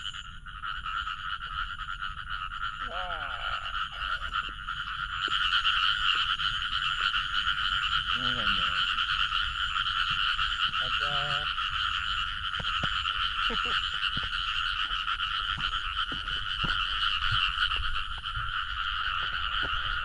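A dense chorus of many frogs calling together, a continuous massed croaking that grows louder about five seconds in.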